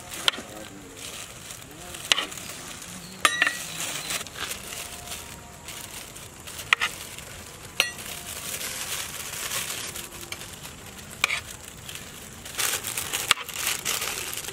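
Cooked rice being scooped by hand into foil-lined food pouches: steady rustling of rice and crinkling bag material, with a few sharp clicks scattered through.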